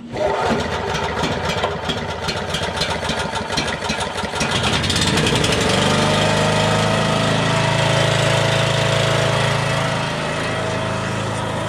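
Generator's single-cylinder OHV four-stroke petrol engine starting on its freshly rebuilt carburettor. It runs unevenly for about five seconds, then settles into a steady, even run.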